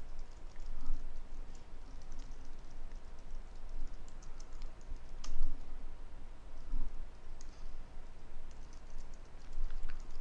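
Typing on a computer keyboard: irregular keystroke clicks in short runs.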